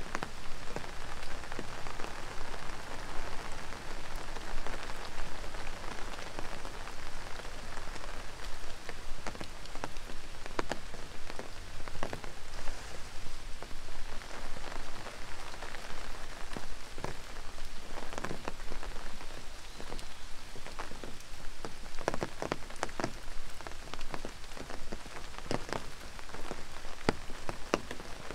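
Steady rain falling, with many sharp individual drop strikes that come more thickly in the second half.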